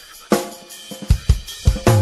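Background music: a drum kit playing a beat of sharp kick and snare hits over cymbals, with pitched instruments coming in near the end.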